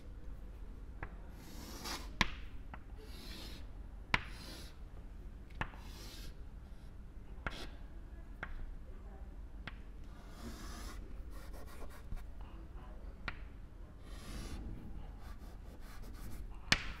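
Chalk on a chalkboard as lines are drawn: faint scraping strokes, one after another. A sharp tap of the chalk against the board comes every second or two.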